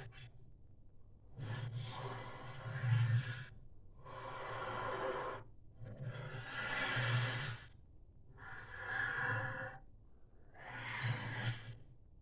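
Dinosaur sound effect for a Tarbosaurus: a run of five long, breathy exhalations, each about a second and a half, with short pauses between and a low rumble beneath each one.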